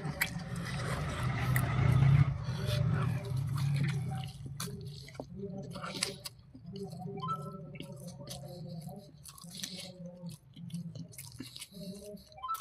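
A person chewing and biting food, with many short crunching clicks throughout.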